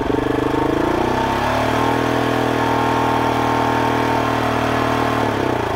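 GasGas SM700's single-cylinder engine running under way, its speed rising, holding steady, then dropping near the end, with the droning noise the owner worries about. The noise was eventually traced to the skid plate under the engine, with the engine itself in order.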